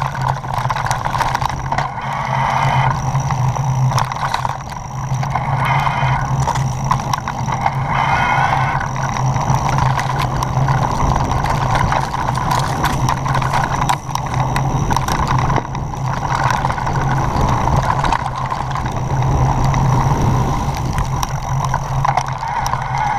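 Mountain bike riding over a rocky dirt trail: a continuous rumble and rattle of the tyres on stones and the bike's parts clattering, with many small knocks.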